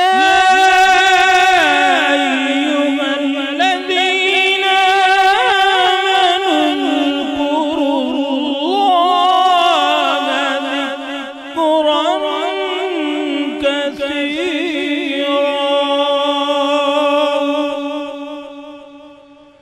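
A man's voice reciting the Quran in a long, drawn-out melodic phrase, with ornamented, wavering pitch in the chanted tilawat style, sung into a microphone. The single held line fades away near the end.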